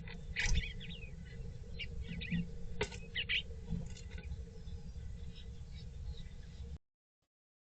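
Small birds giving short, quick chirps over a steady low hum. The sound cuts off abruptly near the end.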